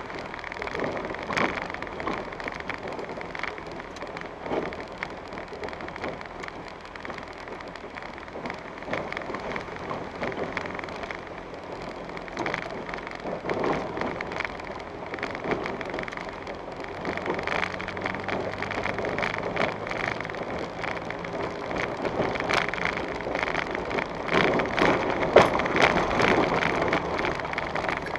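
A vehicle rolls slowly over a rough dirt and stone track, heard from inside the cab: the tyres crackle on gravel and the body rattles steadily, over a faint low engine hum. It gets louder and busier over the last few seconds as it climbs a rocky slope.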